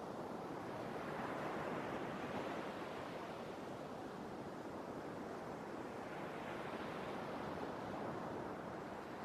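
Sea waves washing onto the shore: a steady rushing surf that swells twice, about a second in and again near the end.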